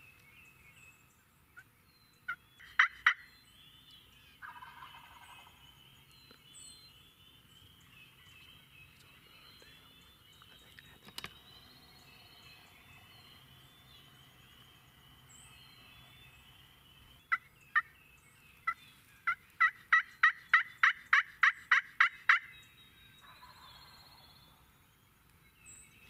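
Wild turkey gobbler gobbling twice, fainter than the rest, each gobble about a second and a half long. Between them comes a loud run of sharp turkey yelps that speeds up to about three a second, with a few more near the start, while songbirds chatter throughout.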